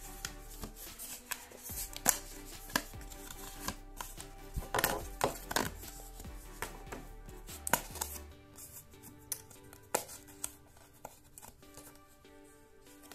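Cardboard being handled as a punch-out figure is pressed out of its card frame: irregular sharp clicks and taps, over quiet background music.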